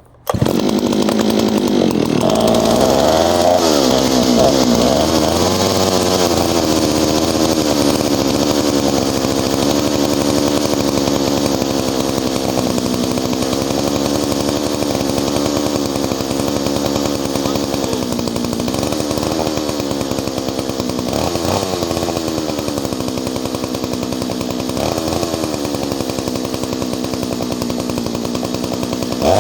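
Ported, rebuilt Solo 670 two-stroke chainsaw coming in suddenly and being revved up and down several times. It then runs steadily, with a few short blips of the throttle near the end.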